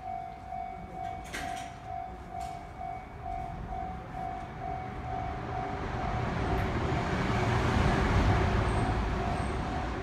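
A railway level-crossing warning bell rings a steady repeating tone about every 0.6 s. From about halfway a Sotetsu 11000 series electric train passes, building to its loudest near the end and drowning out the bell.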